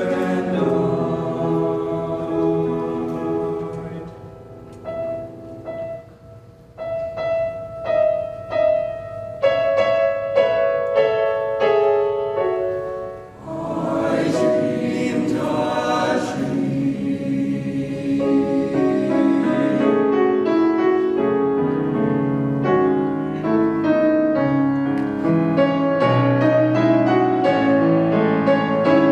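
Boys' choir singing in parts with grand piano accompaniment. The sound drops quieter about four seconds in, then swells loud around halfway.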